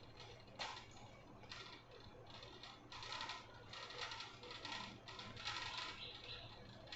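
Faint, irregular clicks and rustling of a plastic ring light and its stand being handled, tightened and fitted together.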